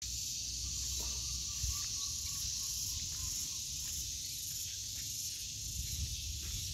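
Steady high-pitched buzz of an outdoor insect chorus, with a low rumble underneath.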